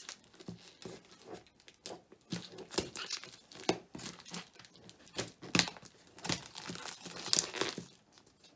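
A cardboard box and its packing being torn and pulled open by hand: irregular crinkling and ripping of cardboard and paper.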